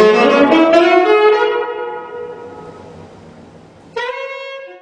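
Saxophone playing: a few notes with a short upward slide into a long held note that fades away, then a fresh note about four seconds in that cuts off abruptly.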